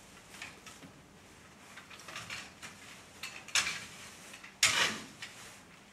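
Stable fork scraping and scooping soiled bedding off a horse-box floor: a run of short scrapes, with two louder, longer ones just past the middle.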